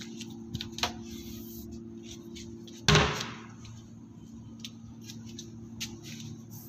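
A single loud sharp bang about three seconds in, dying away over half a second, over a steady low hum and scattered light clicks and taps.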